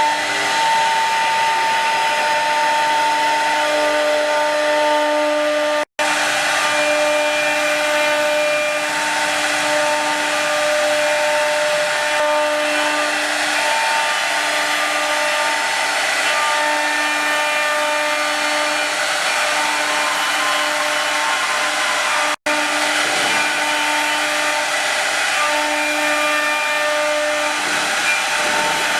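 Four-spindle, four-axis rotary CNC router with 3 kW air-cooled spindles running a rough engraving cut. A steady high whine sits over the noise of the cutting, with tones that switch on and off as the machine works. The sound cuts out for an instant twice.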